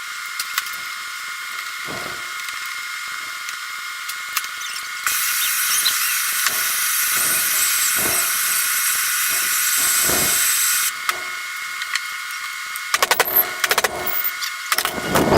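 Hammer blows on a steel punch, driving a door hinge down off its pin held in a vise: a few scattered single strikes, then a quick run of about six strikes near the end. Under them runs a steady hiss that grows louder for several seconds in the middle.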